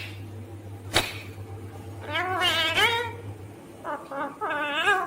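Ringneck parrot calling: two drawn-out, wavering, mewing calls, with a sharp click about a second in.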